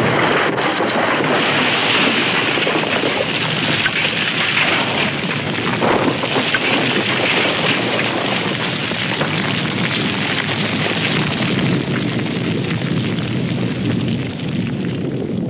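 Loud, continuous roar of a volcanic eruption, thick with crackling, easing off slightly near the end.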